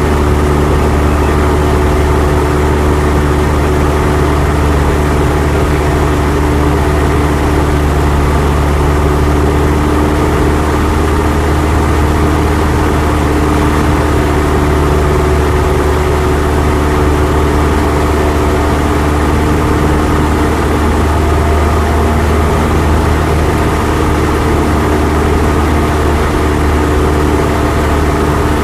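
Cessna 172's piston engine and propeller running steadily in cruise flight, a loud, even drone heard in the cabin.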